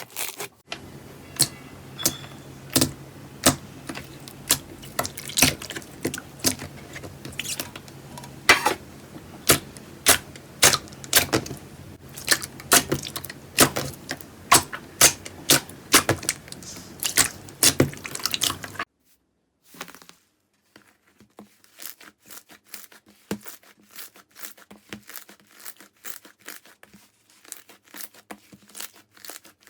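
Slime being squeezed and pressed, making a run of sharp pops and crackles over a faint steady hum. About two-thirds of the way through it cuts to a quieter clip of faster, finer crackling.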